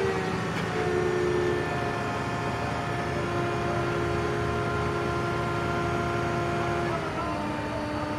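Crane engine running steadily under load, with a whining tone that steps down in pitch about seven seconds in.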